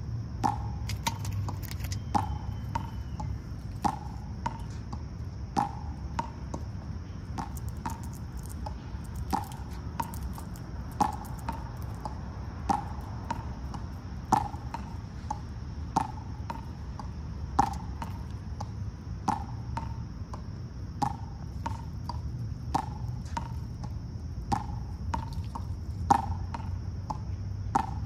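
A short, sharp chip repeated about once a second, unevenly spaced, over a steady high buzz.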